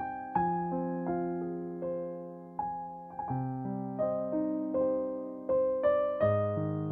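Background music: a gentle piano melody, one note or chord about every half second, each ringing and fading.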